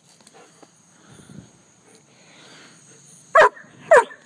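German shepherd barking twice near the end, about half a second apart, over crickets trilling steadily.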